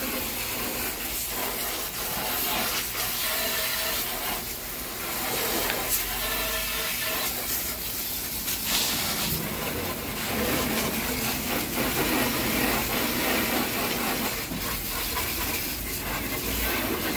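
Water spraying from a hose nozzle onto a window air conditioner's coil and housing: a steady hiss and spatter as heavy muck is rinsed out of the unit.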